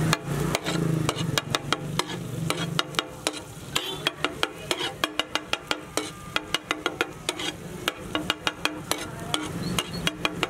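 Steel spatula clanking and scraping on a large flat iron tawa in quick, even strokes, about four a second, stirring and chopping an onion, tomato and chili masala with spices that sizzles as it fries.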